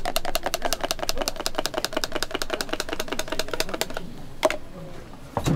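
Rapid, even clicking, about seven or eight clicks a second, from a hand-held batter dispenser as it drops a dollop of baby castella batter into each cup of a cast-iron mold in turn. The clicking stops about four seconds in, and one more click and a knock follow near the end.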